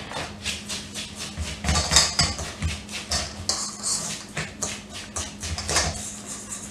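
A utensil scraping and clinking against a stainless steel mixing bowl in quick repeated strokes, stirring a gritty graham cracker crumb, sugar and melted butter crust mixture.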